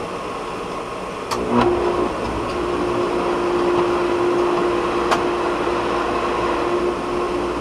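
Pool pump switched on with a click about a second and a half in, then running with a steady hum as it pushes water through the filter and the freshly repaired chlorinator feed hose, testing the repair. A second sharp click comes a few seconds later.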